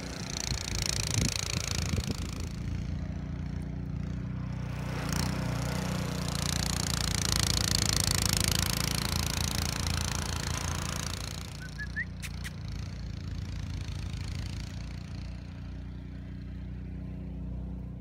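An engine running steadily at an even low pitch, with a rushing hiss that swells about a second in and again, louder, from about six to ten seconds in.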